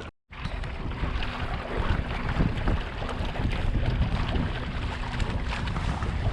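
Wind buffeting the microphone and water rushing and splashing along the hull of a Hobie Mirage Tandem Island trimaran under sail. The sound cuts out for a moment right at the start.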